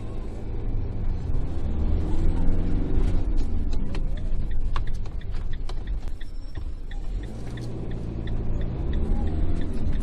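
Camper van engine pulling away from a standstill, revs climbing, easing off and climbing again as it gets under way. A regular ticking of the turn indicator runs for a few seconds in the middle.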